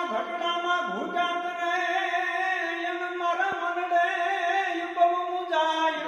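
A voice singing a slow devotional chant in long, held notes.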